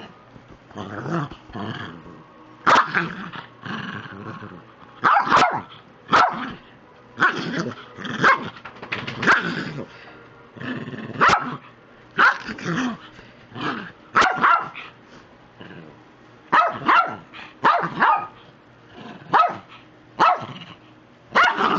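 Small 16-year-old dog barking in a string of short, sharp barks, about one a second and some in quick pairs: play barking during a mock attack.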